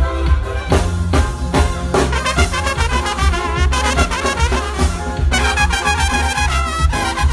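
Live Mexican brass band (banda) music: a trumpet section plays the melody over a heavy bass line and drums. About five seconds in, the trumpets swell into a bright, sustained, wavering passage.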